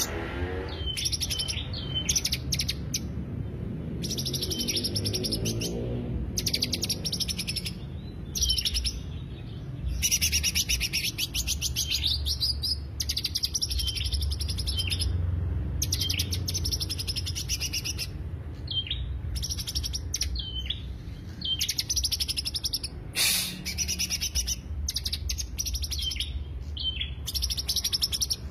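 Green leafbird (cucak hijau) singing as a lure recording: phrase after phrase of rapid, stuttering high notes and trills, broken by short pauses.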